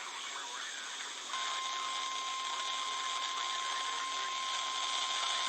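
NOAA Weather Radio 1050 Hz warning alarm tone: a single steady tone that comes on about a second in over radio receiver hiss. This is the attention signal that sets off weather-alert receivers before a warning or a weekly test.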